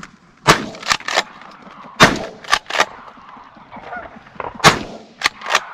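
A volley of 12-gauge shotgun shots fired at geese coming into decoys: about nine sharp blasts in quick clusters, the three loudest about two seconds apart. Goose honks are heard between the shots.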